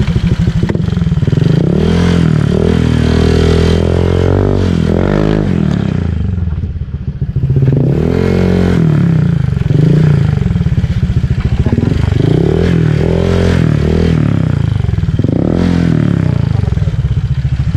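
Honda Click 125 V3 scooter's single-cylinder engine revved in repeated throttle blips through a rebuilt Apido V4 exhaust pipe with a 2-inch straight-through screen. The pitch rises and falls about six times, and it drops back briefly near the middle.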